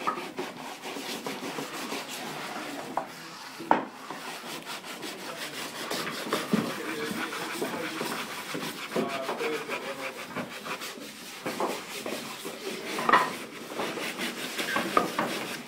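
Hand sanding of small wooden pieces with sandpaper by several people at once: a busy, rapid back-and-forth scratching, with a few sharp knocks of wood on the table.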